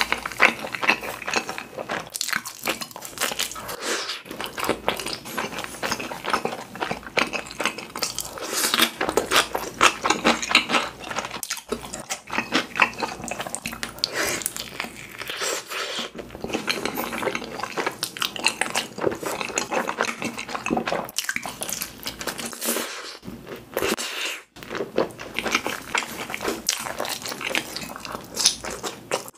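A person biting into and chewing pizza topped with cheese sauce: a dense run of mouth clicks and smacks, broken by a few brief pauses.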